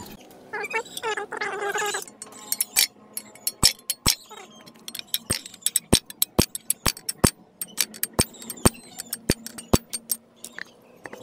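Sharp, irregular metallic clicks and taps, about two a second, from tools working on metal. In the first two seconds a wavering, pitched call is heard before the clicking starts.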